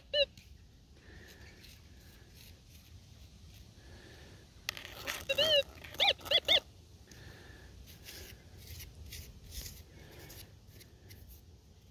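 Minelab Gold Monster metal detector giving short rising-and-falling target tones as a scoop of soil is passed over its coil: the target is in the scoop. One tone just after the start, then a scrape of soil and three more tones about five to six and a half seconds in.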